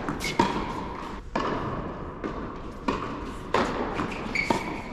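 Tennis balls struck by racquets and bouncing on an indoor hard court during a rally: a series of sharp pops about a second apart, echoing in a large hall.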